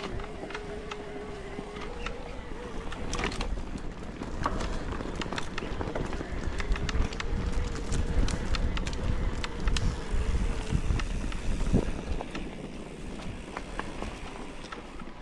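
Electric-assist mountain bike being ridden over rough ground: a steady motor whine that sinks slightly and rises again with pedalling, over a low rumble, with many sharp clicks and knocks from tyres, chain and frame on stones, the loudest about three seconds in and near twelve seconds.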